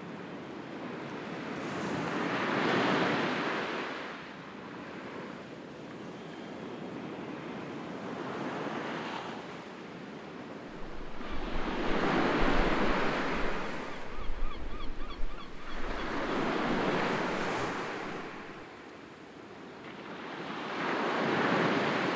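Sea waves washing onto the shore in slow surges, each rising and falling over a few seconds, about five in all. In the middle, wind buffets the microphone with a low rumble.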